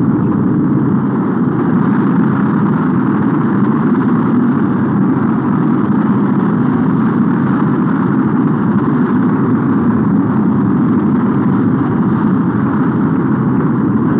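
Saturn V's five F-1 first-stage engines firing at liftoff: a steady, loud rocket-engine rumble and hiss that holds without a break.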